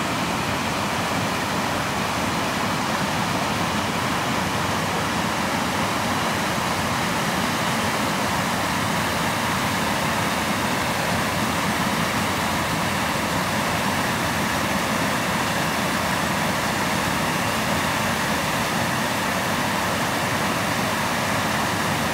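Steady rush of water from a fast creek and a small waterfall spilling over a mill dam.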